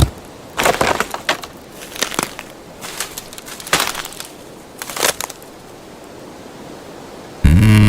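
Wood cracking and crunching: a string of separate sharp snaps, about six or seven spread over several seconds, some in quick pairs. Near the end a loud, low, pitched mechanical sound starts abruptly.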